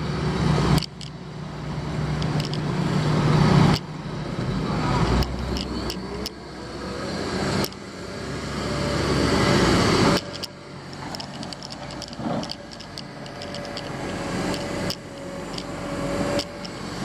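Diesel engine of heavy construction equipment, likely a front end loader, running and working. Its sound swells and drops back sharply several times, with a few metallic clanks.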